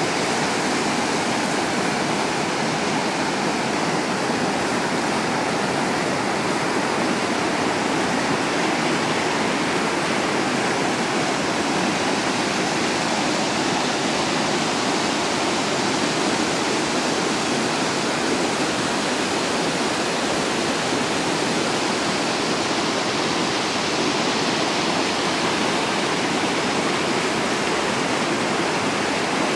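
Floodwater of a swollen, muddy stream rushing over rocks and rapids, a steady, unchanging rush of turbulent white water.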